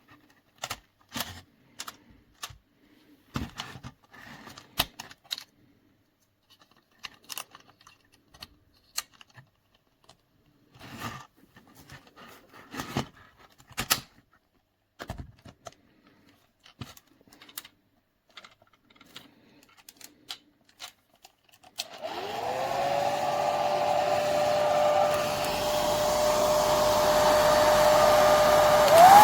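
A series of scattered clicks and knocks from handling, then a hair dryer switching on about 22 seconds in. Its motor whine rises and settles into a steady hum under the rush of air. Near the end it steps up to a higher pitch and gets louder as the dryer goes to a higher speed.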